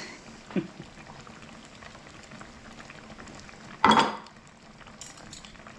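A pot of fish stew bubbling steadily at a simmer, with a small click about half a second in and a louder sharp knock about four seconds in.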